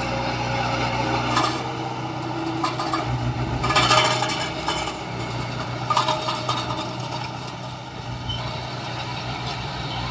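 Engine of heavy construction machinery running steadily. It is broken by bursts of metallic clanking and scraping about a second and a half in, around four seconds in (the loudest), and again around six seconds in.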